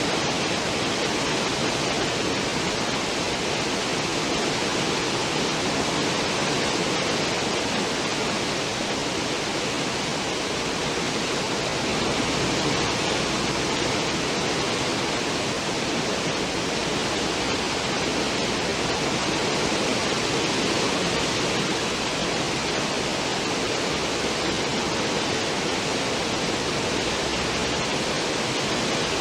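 A cruise ship's stern wake: churning, foaming water rushing with a steady, unbroken noise.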